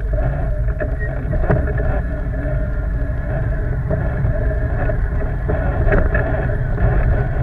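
ATV quad engine running steadily, with a couple of faint knocks.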